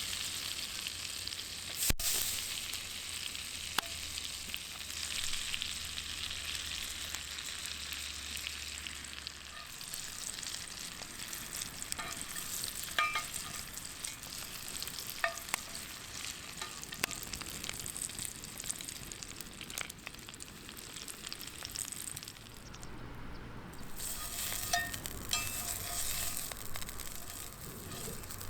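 Wagyu steak sizzling on a hot iron griddle plate over a wood fire, a steady frying hiss with scattered sharp pops. The sizzle dips briefly about three quarters of the way through, then picks up again.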